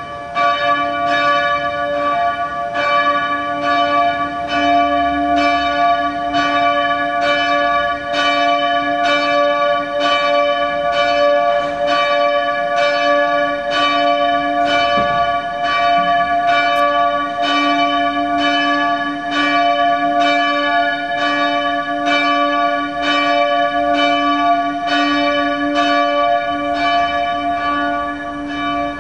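A single church bell, bell 4 of the former Christophoruskirche in Hamburg-Altona, ringing alone with its clapper striking in an even, steady rhythm. Its partials hang on between strokes. The ringing comes in abruptly at the start.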